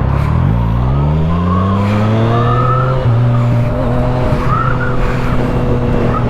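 Motorcycle engine accelerating, its pitch climbing over the first three seconds, then holding a steady note as the bike cruises.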